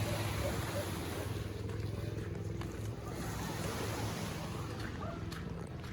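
Steady low engine hum over wind and surf noise.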